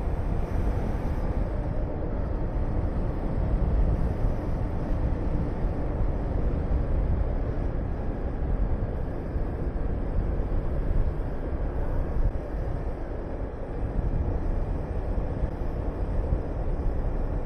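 Honda VTR250's V-twin engine running steadily while riding, under heavy wind rush on the microphone.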